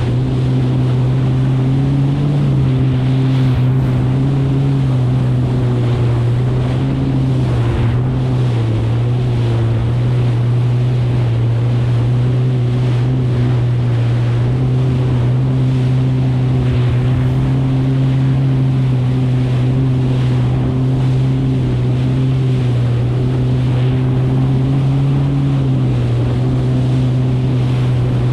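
Kawasaki STX 160 jet ski's four-cylinder four-stroke engine running at a steady cruise, its pitch easing and picking up slightly a few times with the throttle. Water rushing and slapping under the hull in chop, with wind on the microphone.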